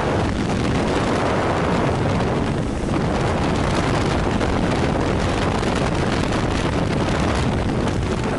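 Loud, steady rush of wind and aircraft engine noise at the open jump door of a skydiving plane in flight, buffeting the camera microphone.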